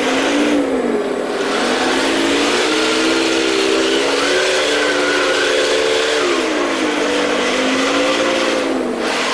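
Heng Long Panther G RC tank's electronic sound unit playing a simulated tank engine at maximum volume through its small onboard speaker, over a steady hiss. The engine note rises as the tank speeds up, holds, drops back a few seconds later and rises again near the end.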